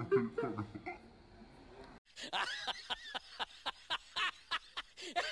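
Two people laughing briefly, then an abrupt edit about two seconds in to a comic laughter sound effect: quick, rhythmic chuckles, about four a second.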